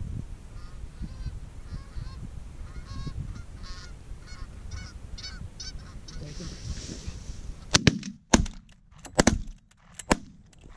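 Canada geese honking, repeated calls about twice a second as the flock works over the decoys, then a quick volley of about six shotgun shots in the last three seconds as the hunters fire on the landing geese.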